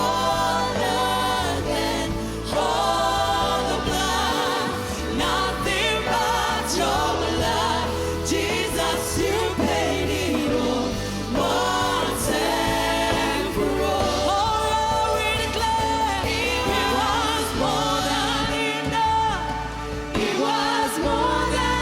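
Live gospel worship band playing with lead vocalists and a choir singing, over keys, bass and drums, heard through a reverb-heavy sound system.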